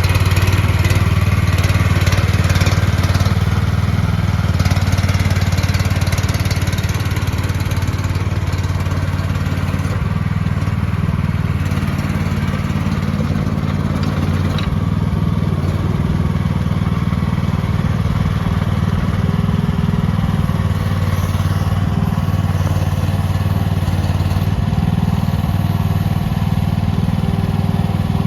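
The 13.5-horsepower gas engine of a MIVA VA13 mini excavator running steadily, a little louder in the first few seconds.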